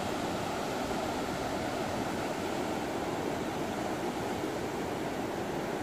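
Ocean surf breaking and washing ashore, a steady rushing noise with no single crash standing out.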